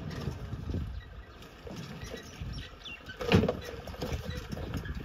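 Maruti Gypsy 4x4 crawling slowly over rock slabs, its engine running at low revs with uneven rumbling from the wheels on stone. A single loud knock about three and a half seconds in.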